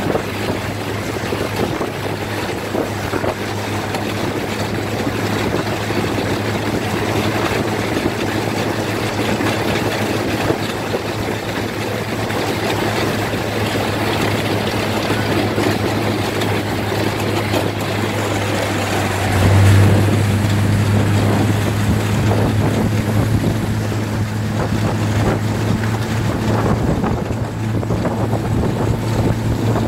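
Snowmobile engine running steadily under way, heard from on board, with a rushing of track, snow and wind on the microphone. About two-thirds of the way through, the engine note gets louder and stays up.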